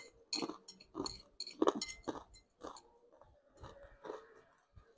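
A person chewing a mouthful of Aceh-style fried noodles, with close, wet mouth sounds coming a few times a second and fading after about three seconds.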